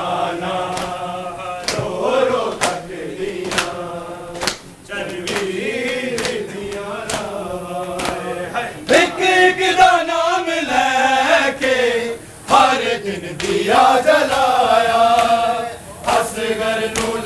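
A group of men chanting a noha, a Shia lament, together, over a steady beat of hands slapping bare and clothed chests in matam, roughly one and a half slaps a second.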